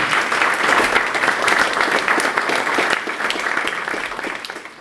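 Audience applauding: dense clapping from many hands that fades out near the end.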